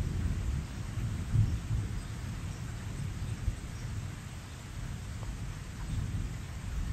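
Rain falling steadily, with a low, uneven rumble underneath that swells about a second and a half in.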